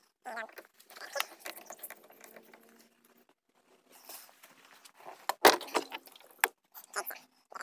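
Handling clatter of a plastic water jug and its hose: rustling, knocks and clicks, with a sharp knock about five and a half seconds in and another about a second later.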